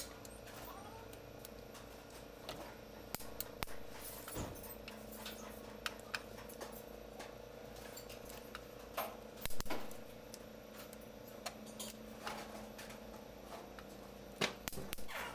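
Socket wrench working the cylinder head bolts of a Mercedes OM501 diesel engine during torque-down: irregular metallic clicks and clinks of the tool on the bolts, with a few louder knocks, over a steady low hum.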